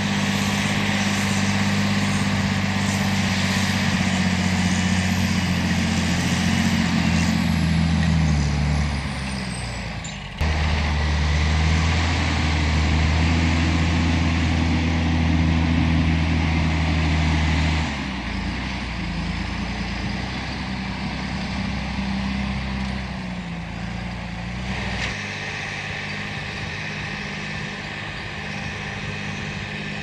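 John Deere 8520 tractor's six-cylinder diesel engine running under load while pulling a five-furrow reversible plough. Its steady drone drops in pitch about eight seconds in, breaks off abruptly and resumes about ten seconds in, then shifts again around eighteen and twenty-five seconds.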